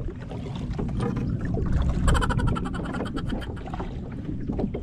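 Kayak paddle strokes: a double-bladed paddle dipping and pulling through the water, with irregular splashes and drips over a low wind rumble on the microphone. A short squeak about two seconds in, at the loudest stroke.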